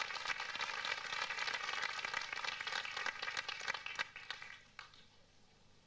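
Audience applauding, the clapping thinning out and dying away about four to five seconds in.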